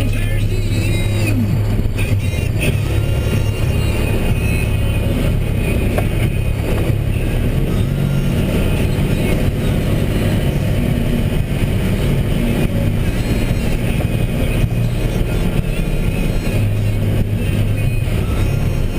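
2012 Mack Granite plow truck's diesel engine running steadily as a loud, deep drone. The drone eases off a little past the middle and comes back stronger near the end.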